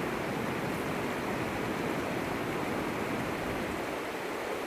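Steady rush of flowing water, an even wash of noise.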